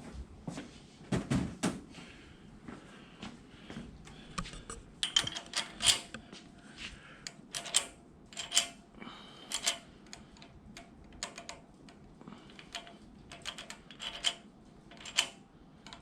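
Irregular metallic clicks and clinks of hand tools working on a small-block Chevy's rocker arm nuts, as the valve lash adjustment is tightened down, with a few louder ringing clinks.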